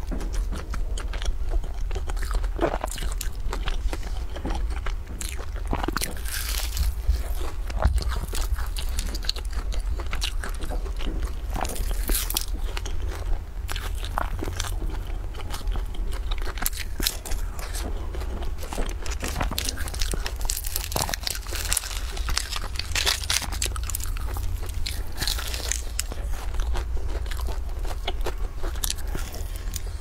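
Close-miked biting and chewing of flaky puff pastry: many crisp crackles as the layered crust breaks, over a steady low hum.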